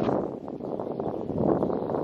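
Wind buffeting the microphone, a steady rumbling rush with no distinct events.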